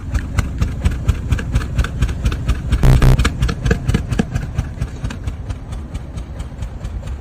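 Car engine idling with a rapid, even ticking puff from the exhaust, the abnormal exhaust noise typical of an exhaust leak, with a brief louder surge about three seconds in.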